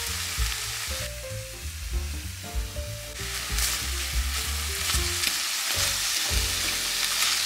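Diced chicken sizzling in a hot stainless steel frying pan, with metal tongs clicking against the pan as the pieces are turned in the second half. Background music plays underneath.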